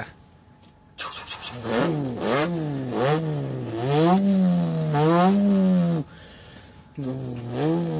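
A person imitating a car engine with his mouth, revving it up and down about five times in a row like an engine held against the rev limiter. It breaks off for about a second near the end, then starts again.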